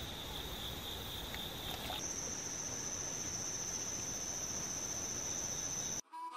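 Insects calling in a steady, unbroken high drone. About two seconds in it switches to a higher-pitched insect drone. Harmonica music starts at the very end.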